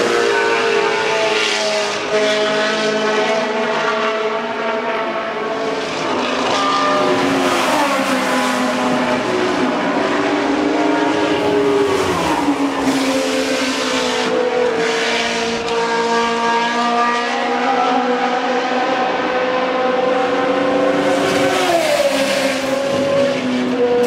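Historic Formula One cars' Cosworth V8 engines running at high revs, several at once, their pitch dropping sharply on downshifts a few times and rising again as they accelerate out of the corner.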